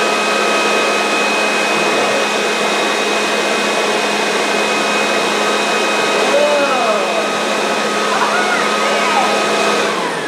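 Large handheld leaf blower running at full speed, a steady loud rush of air with a high whine. Near the end it is switched off and spins down, its whine falling.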